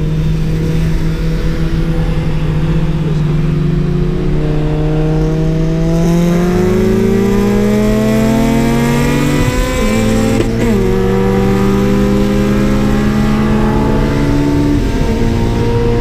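Tuned Honda sports car engine pulling hard on a highway run. It revs steadily higher, drops sharply at a gear change about ten seconds in, then climbs again in the next gear.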